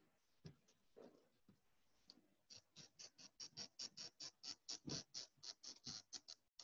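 Whiteboard eraser wiped quickly back and forth across a whiteboard, faint. After a few scattered knocks, a steady run of short scrubbing strokes, about five a second, starts about two and a half seconds in.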